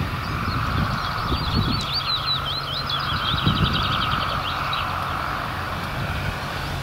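Small narrow-gauge peat-railway locomotive's diesel engine running at a distance, a low steady hum. About a second in a songbird sings a rapid warbling phrase that lasts a couple of seconds.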